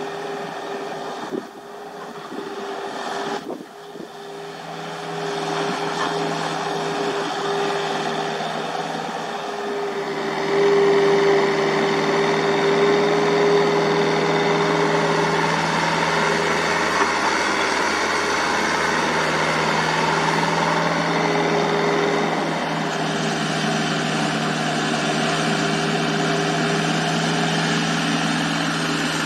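Komatsu mini excavator's diesel engine running steadily with a held tone, growing louder about ten seconds in.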